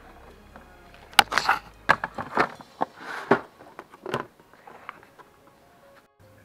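Rummaging through plastic storage boxes and plastic bags: an irregular run of rustles, clatters and knocks, loudest in the middle, then dying down.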